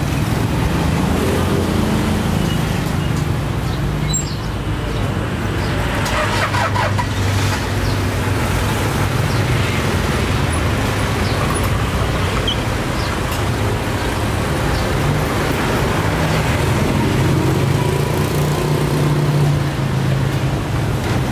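Steady road traffic noise, with vehicle engines humming past.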